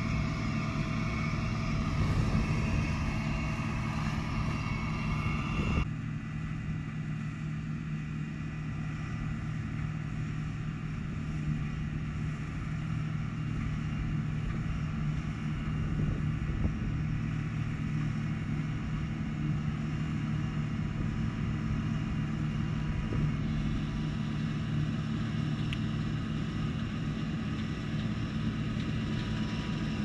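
A steady mechanical hum at a constant pitch, with a low drone and fainter higher tones; the tone changes abruptly about six seconds in, then runs on evenly.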